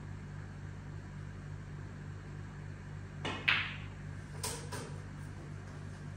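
A snooker shot: a light tap of the cue tip on the cue ball, then a sharp clack as the cue ball strikes an object ball, the loudest sound. Two lighter knocks of balls on the table follow about a second later, over a steady low hum.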